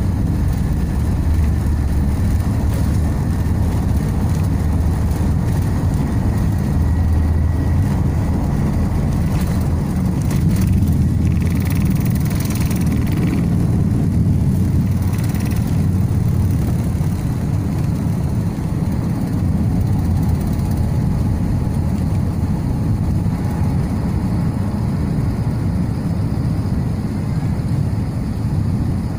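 Jet airliner's engines and airflow heard inside the cabin during the climb after takeoff: a steady, loud low rumble.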